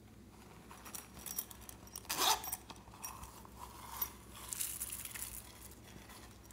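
A silicone zipper pouch being handled and unzipped with scratchy clicks, then small beads and sequins shaken out of it, rattling and pattering into a glass dish.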